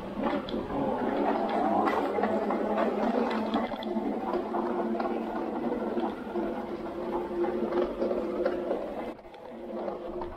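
Hard wheels of a rolling suitcase clattering over hard flooring and the ridged tread of a moving walkway, a continuous rattle with small clicks. From about four seconds in a steady hum sits underneath.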